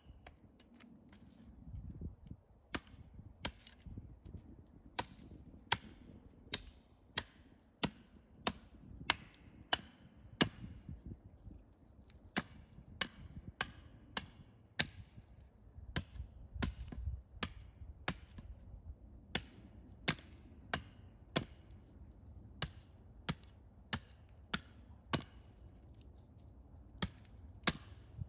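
Steady run of sharp chopping strikes on wood, about three every two seconds, with a few short pauses.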